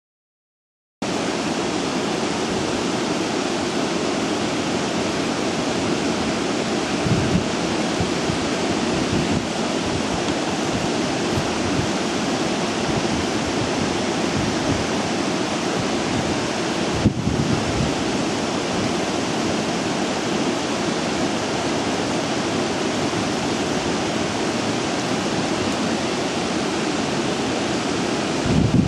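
Steady rushing of water flowing through the open basins of a water recycle plant, starting about a second in, with a few brief low thumps.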